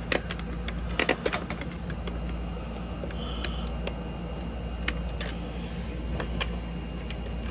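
A steady low hum, with scattered soft clicks and knocks from the phone camera being handled and moved.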